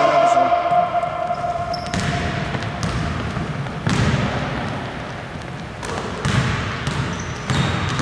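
A basketball bouncing a few times on a hardwood gym floor, with brief sneaker squeaks as players run up the court.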